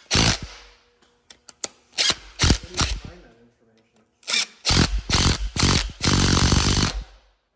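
A handheld power tool running bolts down in short trigger bursts, then one longer run of a couple of seconds near the end. These are cylinder-head bolts being driven in on an LS V8 before final torquing.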